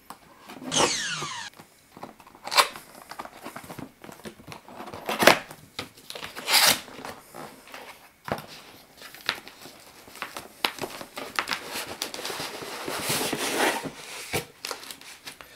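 A cardboard box being unpacked by hand: tape ripping with a brief falling squeal near the start, then sharp scrapes and knocks of the cardboard. Near the end a longer plastic crinkling and rustling comes as the bagged light fixture is slid out between its foam blocks.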